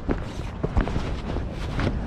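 Wind rumbling on the microphone, with a few short knocks and rustles.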